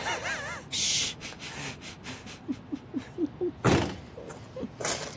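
A short wavering tone and a hiss at the start, a few soft low knocks, then a heavy thud a little over halfway through and a sharper knock near the end.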